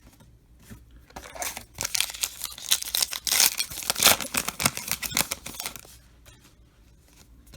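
A baseball card pack wrapper being torn open and crinkled: a run of quick ripping and rustling that starts about a second in and lasts about four seconds.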